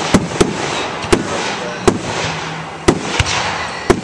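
Aerial firework shells bursting overhead: about seven sharp bangs at irregular intervals, a few close together, over a steady crackling hiss.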